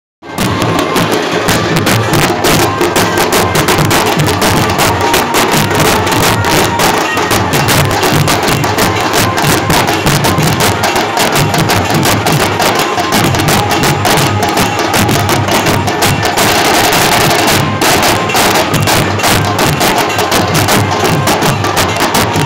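Street drum band playing a loud, fast, dense rhythm: large bass drums and a dhol beaten with sticks, with a hand cymbal clashing over them.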